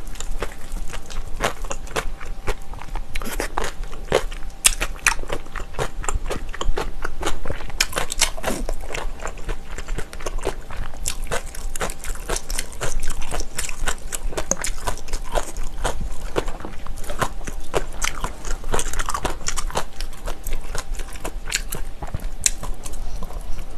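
Eating with the mouth close to the microphone: crunchy chewing of spicy bibimbap with bean sprouts, cucumber and radish, with a metal spoon clinking and scraping against a stainless steel bowl.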